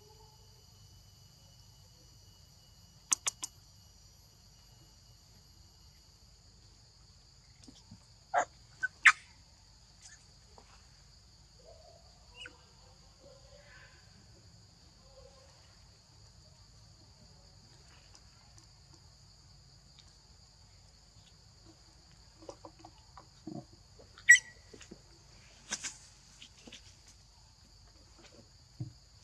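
Forest ambience: a faint, steady high-pitched insect drone, broken by a few brief sharp sounds, loudest about a third of the way in and again near the end.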